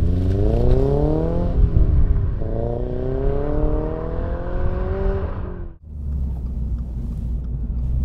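Toyota GR86's 2.4-litre flat-four, fitted with an aftermarket Cobra exhaust, accelerating hard away. It revs up through one gear, shifts up about a second and a half in, and pulls up again more slowly through the next gear. Near the end it cuts to a steady low drone heard inside the cabin.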